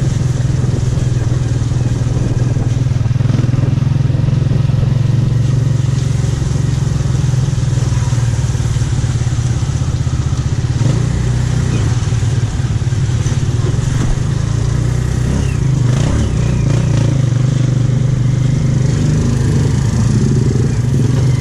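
Motorcycle engine of a tricycle (motorcycle with passenger sidecar) running steadily while under way, heard from the sidecar, with road noise.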